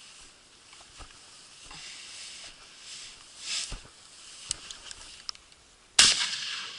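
Rustling of tall grass underfoot with a few light knocks, then a single shotgun shot about six seconds in, much louder than anything else, dying away over a moment.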